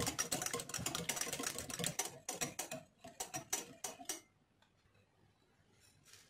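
Metal wire balloon whisk beating eggs in a glass bowl, its wires ticking rapidly against the glass. The beating breaks into short bursts and stops a little after four seconds in.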